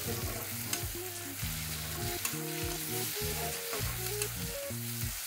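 Tomato-and-onion masala sizzling in a kadai while a metal spatula stirs it, the spatula clicking against the pan a few times. Background music with a simple stepping melody plays under it.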